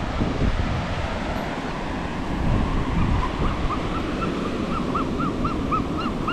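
Surf washing onto a sandy beach, with wind noise on the microphone. About halfway through, a quick run of short squeaky calls starts, about four a second.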